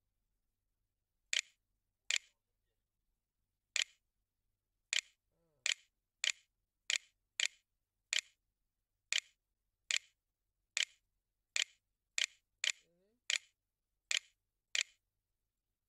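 Short, sharp clicks, about eighteen at an uneven typing pace, one for each key pressed on the Windows On-Screen Keyboard while an email address is entered.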